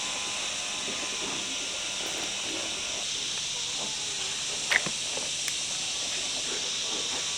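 A steady high-pitched hiss, with one sharp click a little after halfway.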